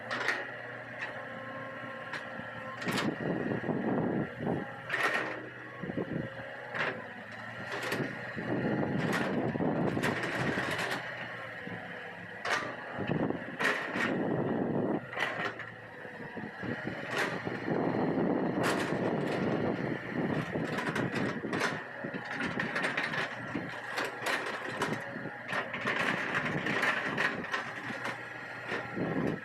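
Hitachi EX200 hydraulic excavator working soil: a steady diesel hum that swells in repeated loud stretches of several seconds as it digs and levels, with scattered sharp clanks and knocks.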